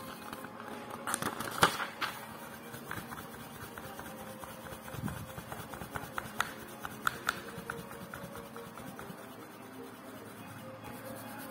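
Small clicks and taps from hands handling an open paperback book, fingers tapping and rubbing on the paper pages: a cluster of sharp clicks about a second in and a quick run of small ticks around six to seven seconds in.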